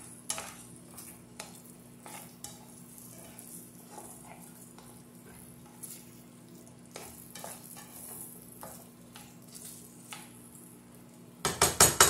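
Plastic spoon and spatula stirring sauce-coated chicken nuggets in a nonstick pan, with soft scrapes and clicks over the light sizzle of the barbecue sauce simmering and thickening. Near the end comes a quick run of loud knocks of the utensil against the pan.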